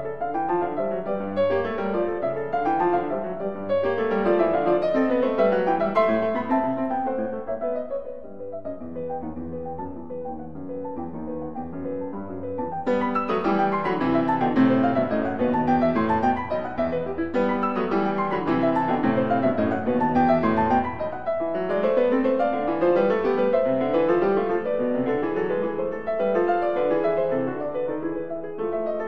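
Piano music, with quick runs of notes going up and down; it plays more softly for a few seconds about a third of the way in, then fuller again.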